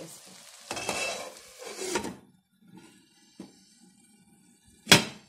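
Spatula stirring the sizzling chicken curry in a nonstick pan for about two seconds, then quiet. Near the end a glass pot lid is set down on the pan with one sharp clank.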